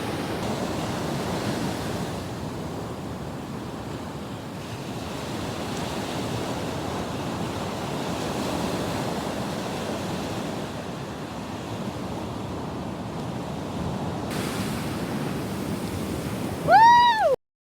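Pacific Ocean surf breaking and washing ashore, a steady rush that swells and eases, with wind on the microphone. Near the end a short, loud tone rises and falls in pitch, and then the sound cuts off.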